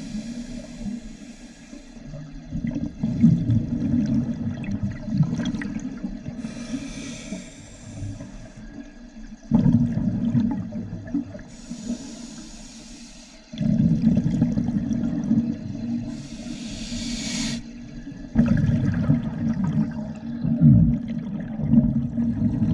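A diver breathing through a scuba regulator underwater: a hiss on each inhale, then a long burst of bubbling on each exhale, the cycle repeating every four to five seconds.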